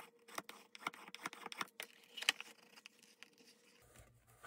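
Bone folder rubbing and pressing a glued paper strip onto a canvas-covered folio spine: faint scratching strokes with many small clicks and taps, the sharpest a little past halfway.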